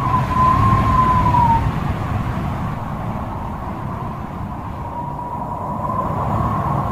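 Thunderstorm wind and rain buffeting a phone microphone, a dense low rumble throughout. A thin, slightly wavering high tone sounds over it for the first second and a half, then returns near the end.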